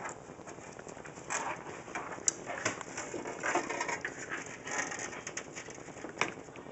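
Power-supply cables being pulled through a cable-routing cutout in a PC case, the sheathing rustling and scraping against the case. A few sharp clicks sound among it, the loudest about two seconds in and another near the end.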